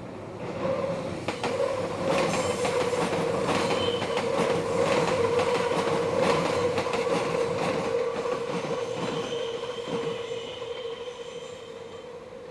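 Meitetsu electric train passing through a tight curve, its wheels squealing with a steady tone over the clicking of wheels on the rail joints. A second, higher squeal joins in the later part as the sound fades away.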